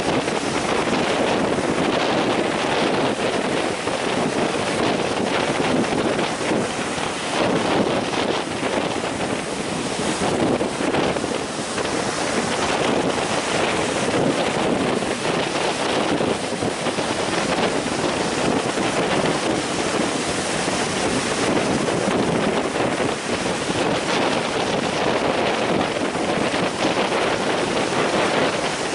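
Strong wind buffeting the microphone over the steady rush of breaking ocean surf.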